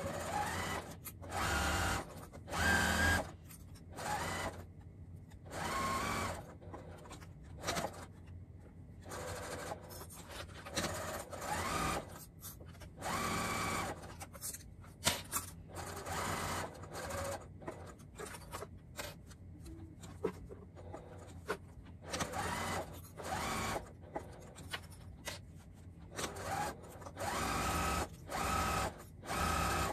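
Electric sewing machine stitching a seam, running in short stop-start bursts of about a second at a time, many times over.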